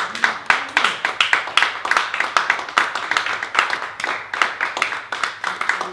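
A small audience applauding, with individual hand claps heard quickly one after another.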